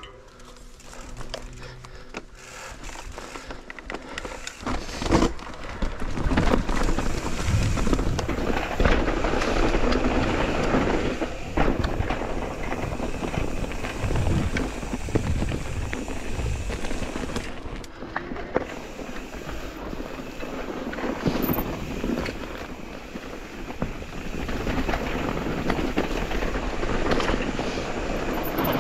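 Mountain e-bike riding on a rough trail: tyres rolling over dirt and roots, the bike rattling, wind rushing on the microphone, with scattered knocks from bumps. It gets louder and rougher about six seconds in.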